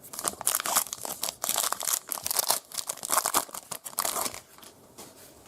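Trading card pack's plastic wrapper being torn open and crinkled, crackling in quick irregular bursts for about four and a half seconds, then going quiet.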